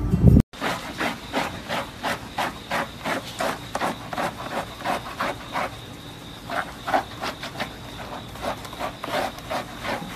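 Hands and a small rubber bath brush scrubbing a wet golden retriever's soapy coat: a rhythmic rubbing, about three strokes a second.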